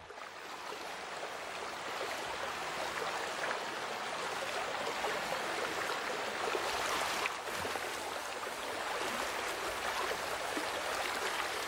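Steady rushing and babbling of a flowing river's water, with a brief dip in level about seven seconds in.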